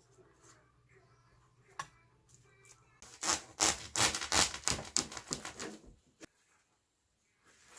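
A knife chopping quickly on a cutting board: a run of sharp taps, about five a second, lasting about three seconds midway through.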